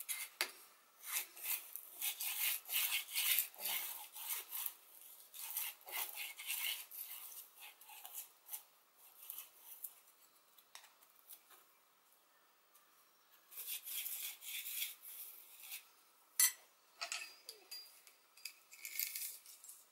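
A short piece of chainsaw chain scraped back and forth along the groove of a worn, freshly hammered chainsaw bar, metal rasping and clinking in short strokes as the groove is checked for tight spots. There is one sharp metallic click about three-quarters of the way through, and loose saw chain clinks near the end.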